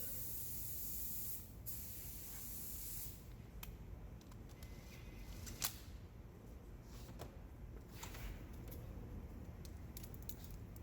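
A spray hissing steadily for about three seconds, with a short break partway through. It is followed by scattered light clicks and taps of parts or tools being handled, one sharper click near the middle.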